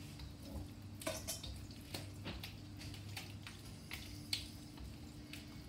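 Chicken thigh pieces being mixed by hand into a thick yogurt marinade in a stainless steel bowl: faint wet squishing with scattered soft clicks and taps.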